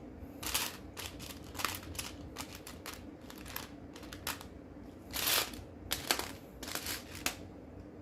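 Lego bricks being handled and pressed together: a run of small plastic clicks and rattles, with a couple of longer rustling scrapes about half a second and five seconds in.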